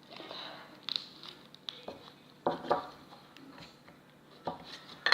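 Handling noise from small plastic slime and magic-putty containers: a brief rustle, then a few light knocks and clicks spread out, the loudest about two and a half seconds in and near the end.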